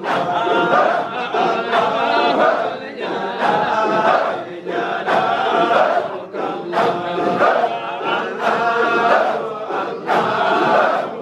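A large crowd of men chanting dhikr together in short, rhythmic, repeated phrases, loud and full of overlapping voices.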